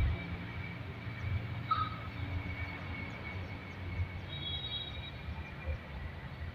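Outdoor ambience: a low, uneven rumble with a thin steady high tone running throughout, and two brief faint chirps, one about two seconds in and one about four seconds in.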